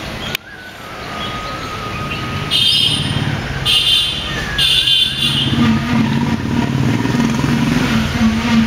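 A motor vehicle's engine running, a steady low hum that grows stronger from about two and a half seconds in and then holds. Three short high chirps sound in the middle.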